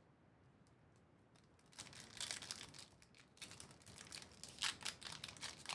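Foil trading-card pack wrapper crinkling as it is handled and torn open, starting about two seconds in and going on in irregular rustles.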